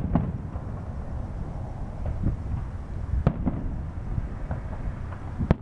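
Aerial firework shells bursting with sharp bangs: one at the start, another about three seconds in, and the loudest near the end, with smaller pops between.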